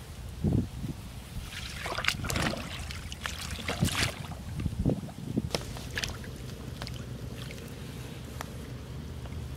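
Plastic basket fish trap splashing into shallow pond water as it is lowered in, a cluster of splashes between about two and four seconds in, then scattered small drips and trickles as it sinks.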